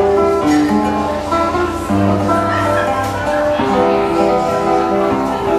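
Acoustic guitar playing a slow instrumental, a plucked melody over held bass notes.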